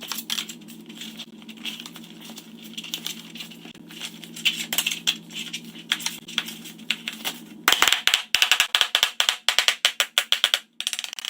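Hammer tapping small nails through folded aluminium sheet into a wooden door panel: scattered taps, then a fast run of sharp metallic taps for about three seconds starting near eight seconds in, over a steady low hum.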